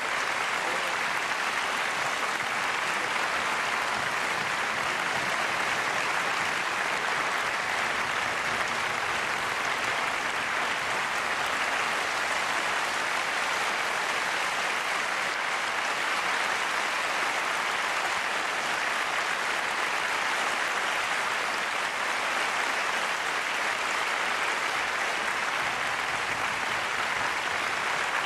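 Concert audience applauding: a dense, even clapping from many hands with no break.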